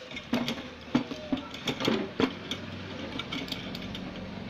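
A quick series of sharp clicks and taps from small tools handling a circuit board during a repair, then a low steady hum near the end.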